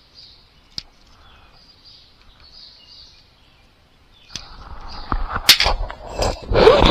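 Faint bird chirps, then from about four seconds in a loud clatter of clicks and rustling as hand tools are handled and metal pliers are set down in a stainless steel tool tray.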